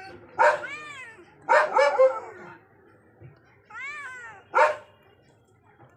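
Cats meowing: four or five separate meows with a rising-then-falling pitch, some short and sharp, with short pauses between them.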